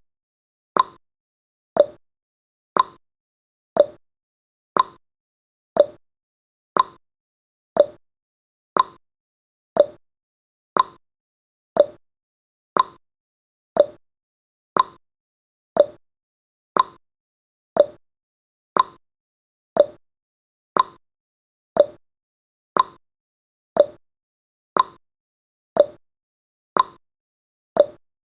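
Countdown timer sound effect: a short, sharp tick with a brief pitched ring, repeating evenly once a second.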